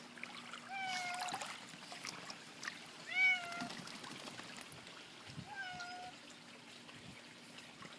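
A cat meowing three times, short calls spaced about two and a half seconds apart.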